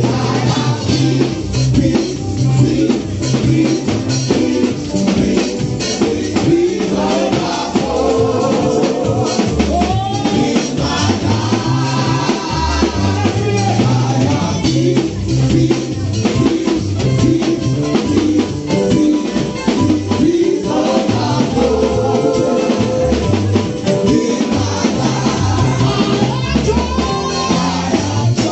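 Live gospel music: singing into a microphone over a band with drum kit and guitar, loud and unbroken.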